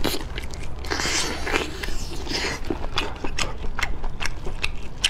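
Close-miked mouth sounds of biting and chewing sauced whole octopus: wet chewing for the first couple of seconds, then a quick run of short, sharp sticky clicks and smacks.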